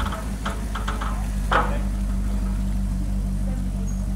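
Maserati GranTurismo's V8 running at a low, steady idle as the car creeps slowly forward. A few faint clicks, then a short sharp noise about a second and a half in.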